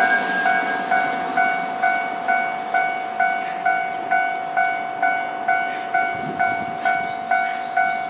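Japanese railway level-crossing warning bell ringing in an even, steady rhythm of about two strikes a second, signalling a train. A rumble of train noise fades away in the first half-second.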